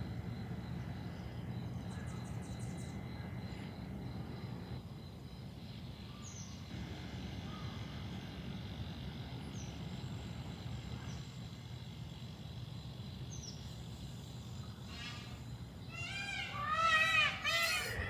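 A peafowl calling loudly near the end, a quick run of harsh, pitched honks that rise and fall. Under it, a steady low background rumble and a few faint high bird chirps.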